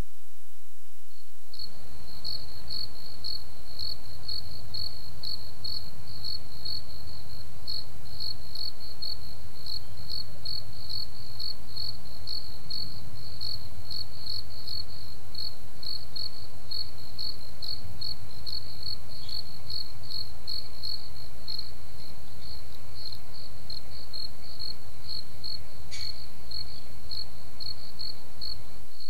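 A cricket chirping steadily, short high chirps about two to three a second, over a low rumble, starting abruptly about a second and a half in.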